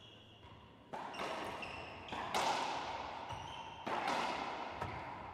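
Racquetball rally: a racquetball struck hard by racquets and slapping off the court walls, three sharp cracks about one, two and four seconds in, each echoing in the enclosed court.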